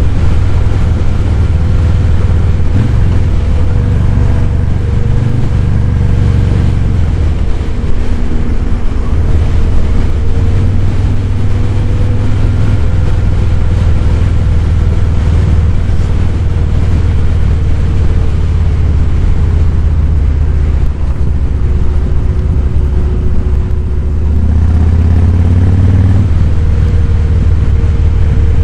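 Harley-Davidson Fat Boy 107's Milwaukee-Eight V-twin running under way with a deep, steady exhaust note. It eases off and picks up again a few times, pulling harder about three-quarters of the way in.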